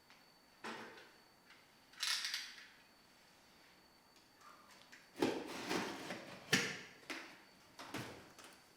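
Hand work on a rusty metal toy truck: a light knock, a short scrape about two seconds in, then a cluster of knocks and clatter from about five to seven seconds in, and two more knocks near the end.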